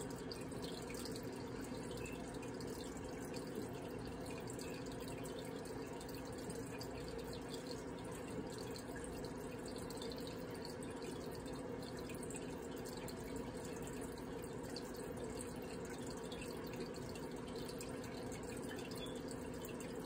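Microwave oven running with a steady hum while it heats marshmallow Peeps.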